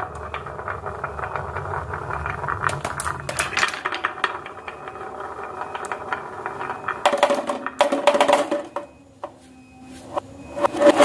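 Marbles rolling along a marble-run track, a steady rolling rumble with many quick clicks as they knock against the track and each other. It gets louder twice, about seven seconds in and again near the end, with a ringing hum as the marbles run down the gutter or slider.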